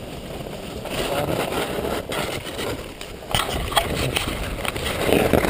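Snowboards sliding and scraping over snow in a steady rushing hiss, with a few sharp knocks a little past the middle.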